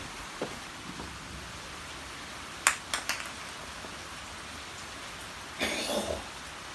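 A puppy's hard chew knocking against a concrete floor: one sharp knock about two and a half seconds in and two quick lighter ones just after, over a steady rain-like hiss. A short scuffling burst comes near the end.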